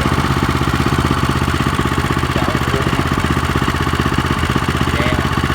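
Small engine of a Japanese walk-behind rotary tiller running steadily, a fast even chugging with no change in speed.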